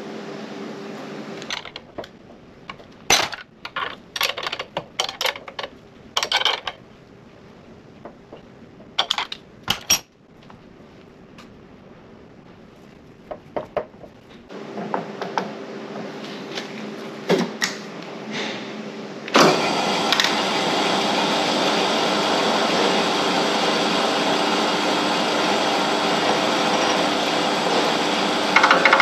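Metal-on-metal clanks and knocks as steel clamps and a workpiece are set up on a milling machine table. About 19 seconds in, the milling machine starts abruptly and runs loud and steady.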